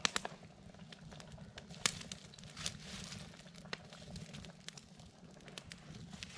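Open wood campfire crackling, with irregular sharp pops as the burning logs throw sparks.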